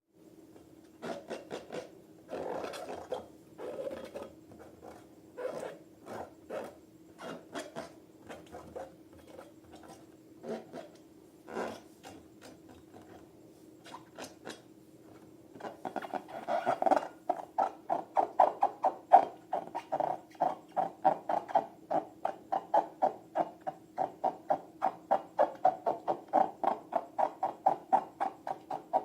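Wet squelching and clicking of slime being handled: scattered squishes at first, then from about halfway a steady squelching about three to four times a second as the slime is worked by hand.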